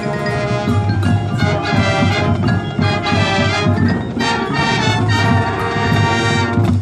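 A band playing brass with mallet percussion and drums, loud and rhythmic, with many quick struck notes over sustained low brass.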